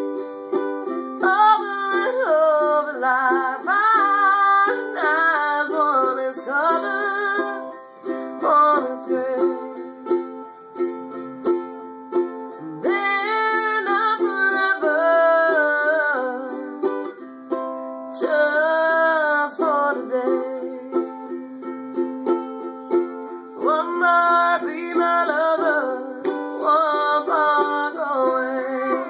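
Ukulele strummed in a steady rhythm, with a woman's singing voice over it in several phrases and instrumental gaps between them.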